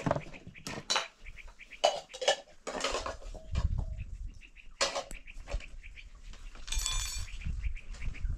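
Metal dishes and bowls clinking and knocking as they are handled, a handful of separate sharp knocks, then a brief ringing clatter about seven seconds in.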